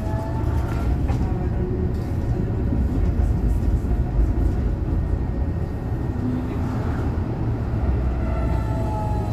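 Tatra KT4D tram running along the track, heard inside the passenger cabin: a steady low rumble of the car on the rails, with a whining tone that glides in pitch during the first second and again near the end.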